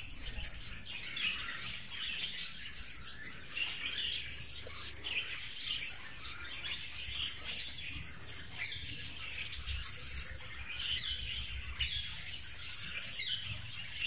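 A colony of budgerigars chirping and chattering: many quick, overlapping chirps that go on without a break.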